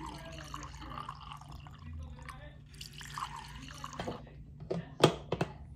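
Water gurgling in a large plastic water jug as a person drinks from it. A few sharp clicks near the end.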